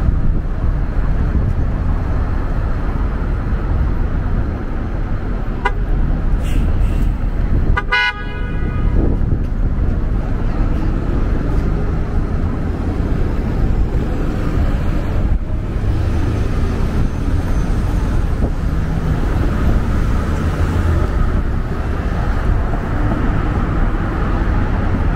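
Steady downtown traffic rumble, with one short car horn honk about eight seconds in.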